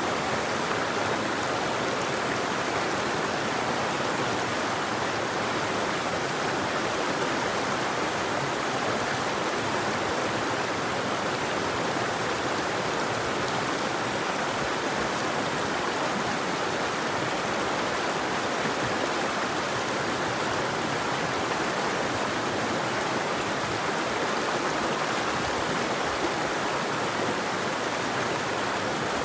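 River water flowing and rushing steadily, an even hiss with no birdsong.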